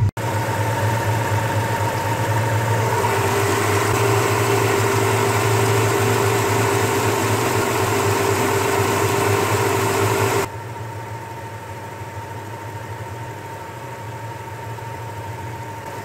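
Toyota Tarago van's engine idling steadily as it warms up during a head-gasket sealer treatment, with a loud hiss over it. About ten seconds in the hiss cuts off suddenly, leaving a quieter engine hum.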